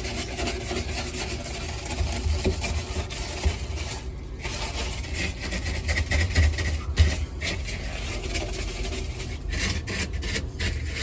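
Continuous rubbing and scraping of an abrasive scrubber worked hard against stuck-on grime on a refrigerator's surfaces, with a short pause about four seconds in.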